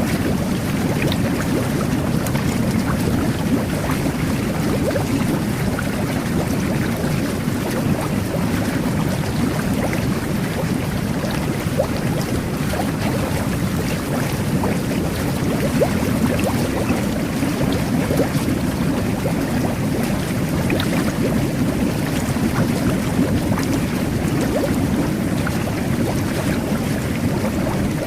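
Jet bath (whirlpool tub) jets churning the bathwater: a steady low rush of bubbling water with scattered small pops of bursting bubbles.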